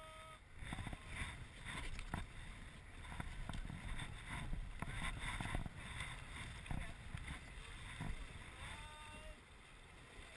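Rushing, choppy river water around an inflatable raft, with paddles splashing into the water in uneven surges.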